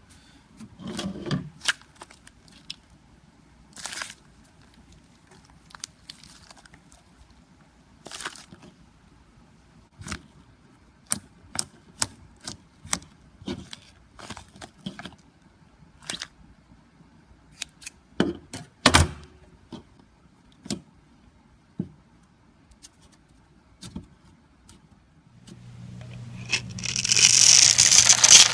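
Slime being worked by hand: scattered sticky pops and clicks. From about 25 seconds in, a louder continuous crunching builds as the slime is squeezed.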